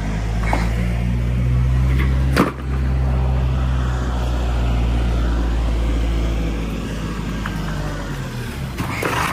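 Engine of a fork-equipped machine running steadily at a low pitch, louder through the middle, with one sharp knock about two and a half seconds in.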